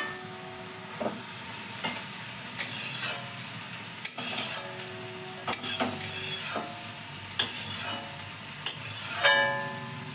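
A long metal spatula scrapes and knocks against a large metal kadai as food is stirred, about once a second, the pan ringing briefly at some strokes. Under it the food sizzles steadily in the hot oil.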